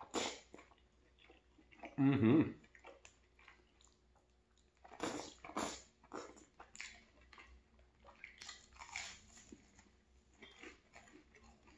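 Close-miked eating: slurping up strands of pulled pork stew and chewing with wet smacking sounds, with a brief hum about two seconds in. Near the end comes a crunchy bite into buttered toast.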